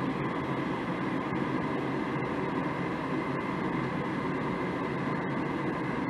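Goodman 80% furnace's draft inducer motor running with a steady hum during the igniter warm-up, before the gas valve opens and the burners light.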